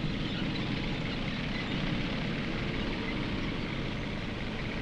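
Tanks driving cross-country, a steady low rumble of engines and running gear.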